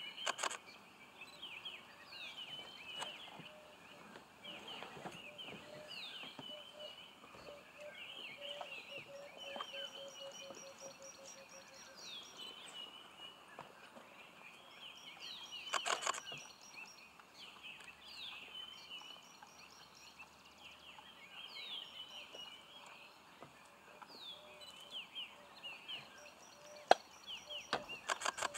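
High chirping calls: short falling chirps repeated again and again, with a faster, higher trill at times. A few short bursts of clicks, about a second in, around the middle and near the end.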